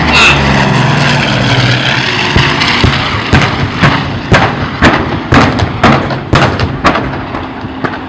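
A Douglas A-26 Invader's twin radial engines running steadily as it passes low, then fading. From about two seconds in, a rapid, irregular string of sharp explosions, about two a second: ground pyrotechnics set off for a simulated bombing run.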